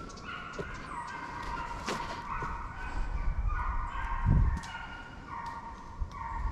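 A pack of deer hounds baying, several voices overlapping in long drawn-out notes as they run a deer. A short low thump about four seconds in.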